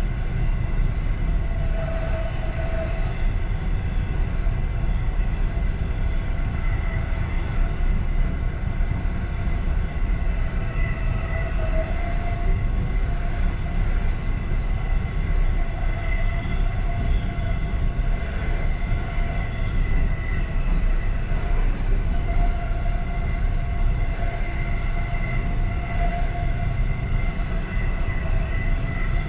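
Passenger train running steadily, heard from inside its last car: a continuous low rumble of wheels on the rails, with a faint steady whine above it.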